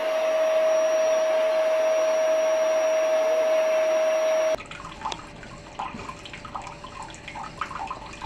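Steady whooshing noise of an electric appliance's motor and fan with a steady whine, cutting off suddenly about four and a half seconds in. Then quieter water sounds at a washbasin tap, with scattered small drips and ticks.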